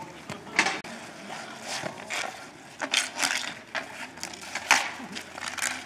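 Ball-hockey sticks knocking against the plastic ball and the asphalt during play: sharp, irregular clacks, several in quick succession around the middle.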